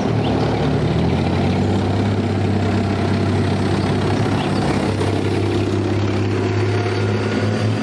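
A column of British Challenger 2 main battle tanks driving past, their V12 diesel engines running steadily with a low hum.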